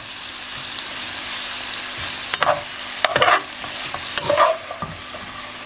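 Broccoli and sliced garlic with soy sauce sizzling in a frying pan, a steady hiss. A few scrapes and knocks of a utensil against the pan come in the middle as the vegetables are stirred.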